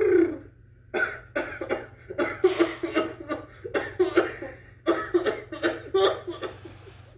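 A man coughing in a long fit of rapid, repeated coughs, starting about a second in and stopping shortly before the end.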